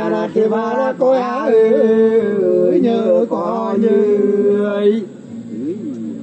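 Men singing a Nùng sli folk song unaccompanied: long held notes with quick ornamental turns. The singing breaks off about five seconds in.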